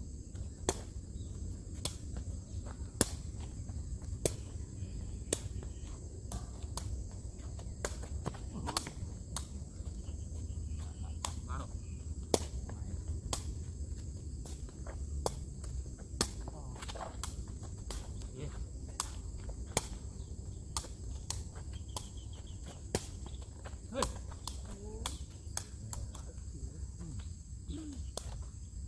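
A takraw ball kicked back and forth, making sharp hollow taps at an uneven pace of roughly one every half second to a second and a half. Behind them runs a steady high thin buzz of insects.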